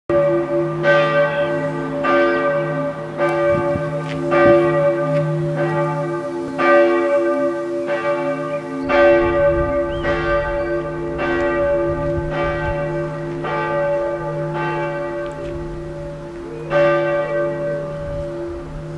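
Church bell ringing, struck steadily about once a second, each stroke ringing on under the next; the ringing slowly fades toward the end.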